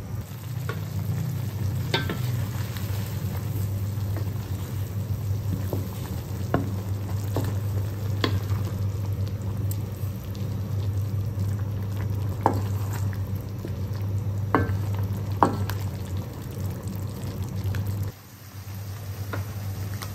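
Wok of pork bekasam and cassava-leaf soup heating back to the boil, with scattered pops and ticks over a steady low hum. The hum drops away about two seconds before the end.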